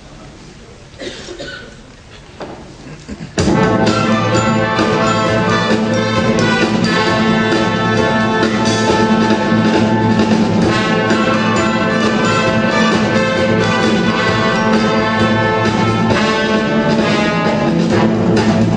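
Symphony orchestra with strong brass: a quieter few seconds, then the full orchestra comes in suddenly and loudly about three seconds in and plays on with a steady beat.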